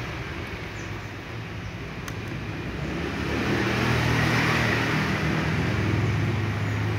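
A motor engine running with a steady low hum, growing louder about three seconds in and holding there.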